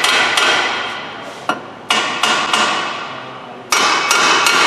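Repeated hammer blows on steel suspension parts, about three strikes a second, each with a metallic ring. The blows fade and pause briefly about a second and a half in, lull again just after three seconds, then come back louder and steadier near the end.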